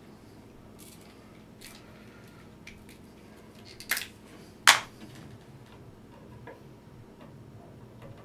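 Hand handling of coax cable and a fish rod at a wall opening: faint scattered ticks, then two sharp clicks a little under a second apart about four seconds in.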